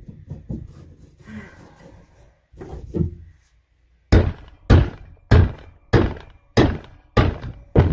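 A steel pry bar being driven down into a saw cut in an OSB plywood floor: a few light knocks and scrapes, then about four seconds in, seven sharp, evenly paced strikes, roughly one every 0.6 seconds.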